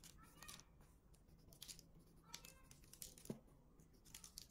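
Near silence, with faint scattered clicks and light taps.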